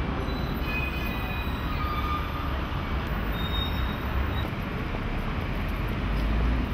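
Steady outdoor background noise with a low rumble, with a few brief faint high tones in the first half.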